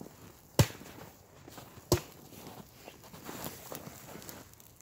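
Axe chopping wood: two sharp, hard strikes about a second and a half apart, followed by softer small crackles.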